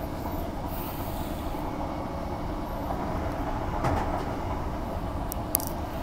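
Transperth electric suburban train running along the track, heard from inside the carriage: a steady rumble of wheels on rail, with a brief louder swell about four seconds in and a sharp click near the end.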